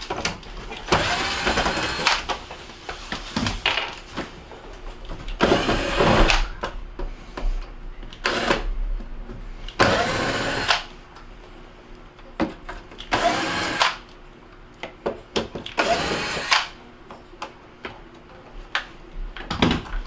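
Phillips screws being run out of a dishwasher door panel with a driver, in about five short whirring bursts a few seconds apart, with handling knocks in between.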